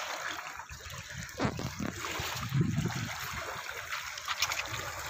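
Small waves lapping and trickling on a pebble shore, with a few low bumps.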